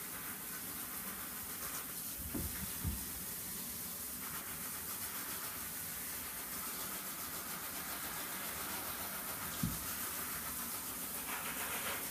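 Handheld shower head spraying water onto jeans: a steady hiss of running water. Two dull thumps come between two and three seconds in, and another near ten seconds.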